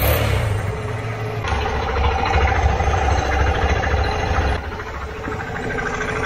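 Suzuki RV125 Van Van single-cylinder four-stroke engines idling, one of them a freshly fitted replacement, with a light clicking that is taken for the tappets. The sound gets louder about a second and a half in and drops back near five seconds as the microphone moves between the engines.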